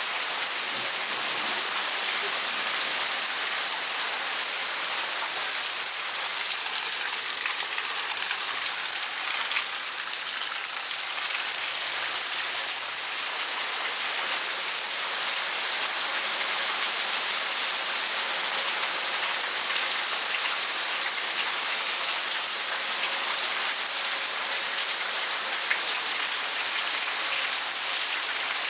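Thunderstorm rain falling steadily: an even hiss with no breaks.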